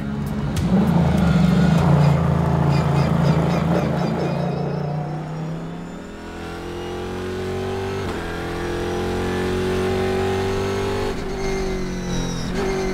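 Race car engines running loudly at pit lane, then the in-car sound of a Pratt & Miller Cadillac CTS-V coupe race car accelerating hard at full throttle. The engine note climbs steadily in pitch, with upshifts near the end.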